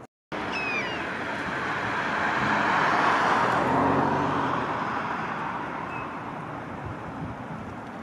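A passing vehicle's road noise swells to a peak around the middle and fades. Over it there is a short, high, falling bird call about a second in, and a faint brief note near the end.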